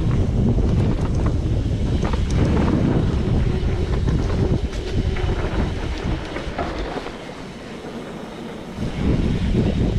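Wind buffeting the camera microphone while riding a mountain bike along a dirt trail, with scattered clicks and rattles from the tyres and bike over the ground. The wind noise eases for a couple of seconds near the end, then picks up again.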